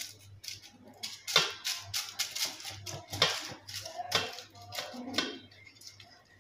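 Butter paper crinkling and crackling as hands press and smooth it into a metal pan, in irregular crisp crackles.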